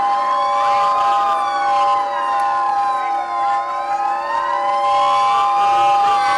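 Police siren wailing, its pitch sweeping slowly up and down, over several steady held tones.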